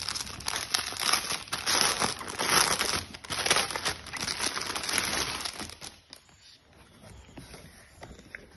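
Clear plastic bag around a T-shirt crinkling as it is handled and pulled open, a dense crackle for about six seconds that then dies down to faint rustles.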